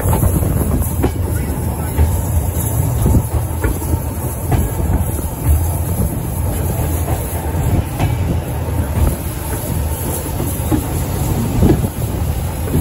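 Steam-hauled heritage train running at speed, heard from a carriage just behind the locomotive: a steady low rumble with wheels clicking over the rail joints.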